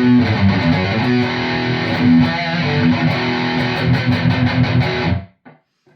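High-gain distorted electric guitar playing a heavy chugging rhythm riff, an ESP E-II Horizon with EMG pickups going straight into an ENGL Fireball amp with only a noise gate on. The riff cuts off sharply about five seconds in as the gate closes.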